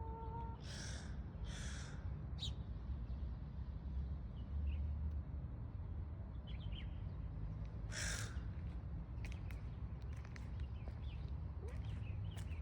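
Short, harsh animal calls: two close together about a second in and a third about eight seconds in, over a steady low rumble.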